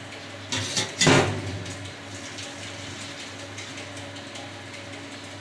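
Boiled soya chunks and their hot cooking water poured into a strainer: a rush and splash of water starting about half a second in, loudest just after one second and dying away within about a second, leaving a steady low hum.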